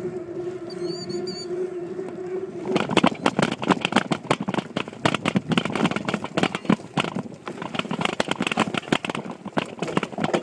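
Mountain bike with a handlebar-mounted phone: a steady hum for the first couple of seconds, then rapid, irregular rattling and knocking from about three seconds in as the bike rides over rough, bumpy ground, shaking the mount and case.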